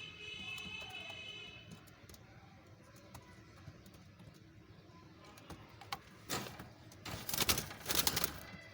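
Pet ringneck parrots: a held, pitched call at the start, scattered small clicks, then loud, harsh, rasping bursts in the last third.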